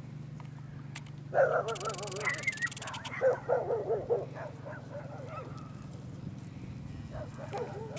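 Animal calls: a run of loud, wavering cries from about a second and a half in until about four seconds in, with fainter ones near the end, over a steady low hum.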